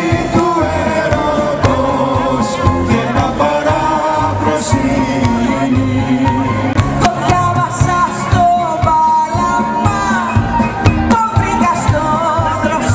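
Live band playing an amplified Greek popular song, with several voices singing together over electric and acoustic guitars, keyboards and a steady drum beat.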